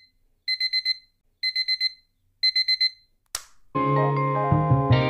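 Digital alarm-clock beeping: three quick bursts of about five high beeps each, repeating about once a second. A short whoosh follows about three seconds in, and music with sustained chords and bass starts just after.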